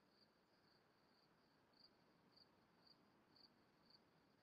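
Near silence, with a faint high chirping that repeats about twice a second at a steady pitch, like an insect.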